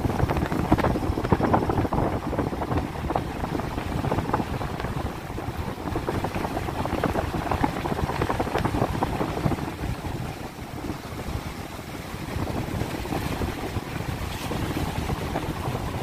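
Car driving on a rough road, heard from inside the cabin: steady rumbling road and engine noise with many small knocks and jolts, easing slightly about ten seconds in.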